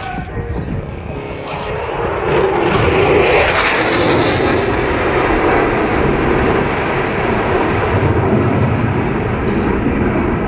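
F-22 Raptor's twin Pratt & Whitney F119 turbofans in afterburner during a hard turn: a loud jet roar that swells about two seconds in, carries a harsh high hiss for a couple of seconds, then holds steady as the jet pulls away.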